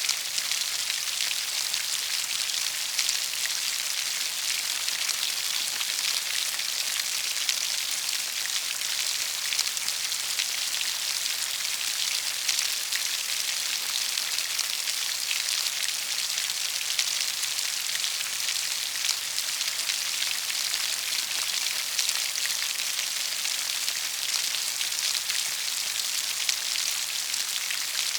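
Rain falling steadily: an even, high hiss of many drops with little low rumble, and louder single drop ticks here and there.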